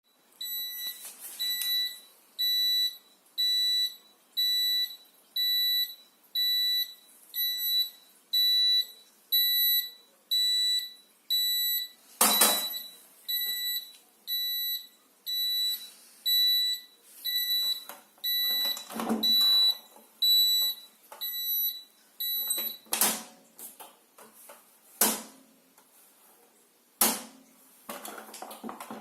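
Zanussi Acycle 1000 FE1014N washing machine's electronic beeper sounding a steady series of high beeps, about one a second: the error signal it gives when the rinse programme fails. The beeping stops a little after two-thirds of the way through, and a few sharp clicks follow.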